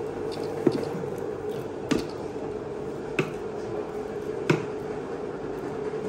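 Freshly pounded sticky mochi being scraped out of a metal bowl, with four sharp clicks about a second and a quarter apart over a steady hum.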